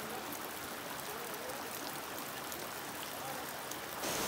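Steady trickle and drip of water running down a moss- and fern-covered rock wall at the head of a waterfall with little water flowing.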